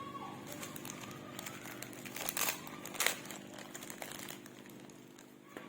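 Handling of a microphone accessory pouch and its contents: rustling with a few sharp clicks over a steady low hum.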